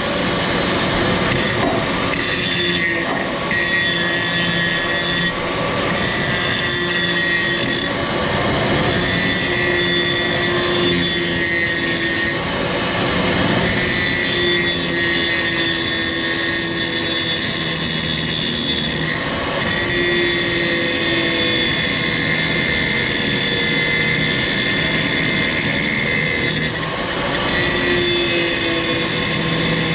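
Handheld power grinder running continuously while grinding down metal, its whine dipping and recovering as it is pressed into the work.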